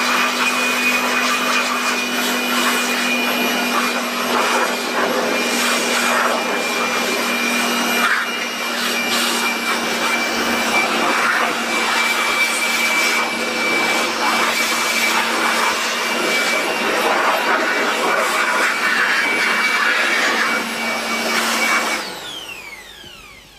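Handheld electric air blower running steadily at full speed, blowing thick dust out of a CRT TV's chassis and circuit board. Near the end it is switched off, and its motor whine falls away as it winds down.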